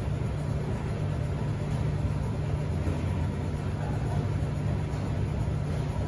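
Commercial front-loading washing machine on its final spin, the drum turning at high speed with a steady low rumble.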